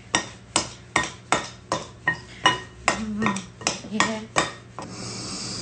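Metal utensils clinking rhythmically against a glass mixing bowl, about two to three strikes a second, each with a short ring of the glass, as pie-crust dough is worked by hand. The clinking stops near the end.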